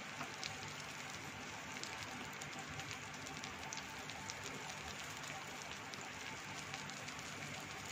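Butter sizzling faintly under paneer wraps roasting on a hot tawa, a steady soft crackle with many small pops.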